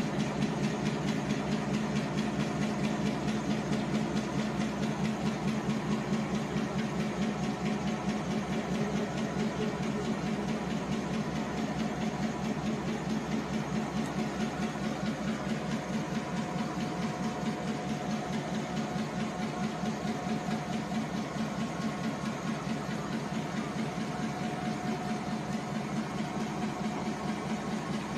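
Diesel locomotive engine idling steadily with a fast, even throb. A faint high whine joins it in the second half.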